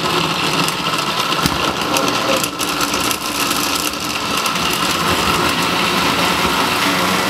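Countertop blender motor running steadily, churning a jar packed full of thick berry smoothie.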